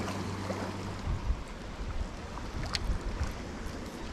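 Shallow creek water running and splashing around wading legs, with uneven low rumbles of wind on the microphone.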